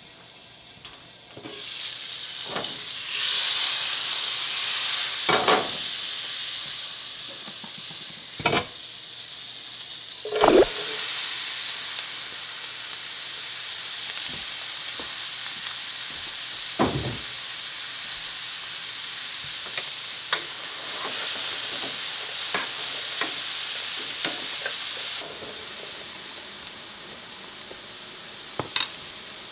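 Sliced steak and vegetables sizzling in a hot pan on the stove. The sizzle rises about three seconds in, and a utensil knocks and scrapes against the pan now and then as the food is stirred.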